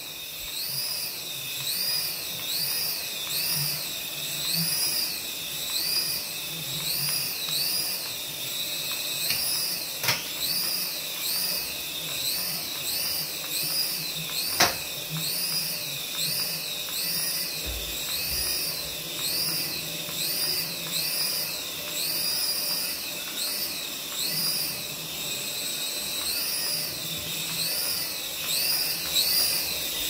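Toy coaxial RC helicopter hovering, its small electric motors and twin rotors giving a high-pitched whine that rises and falls in quick, repeated swells. Two sharp clicks about ten and fifteen seconds in.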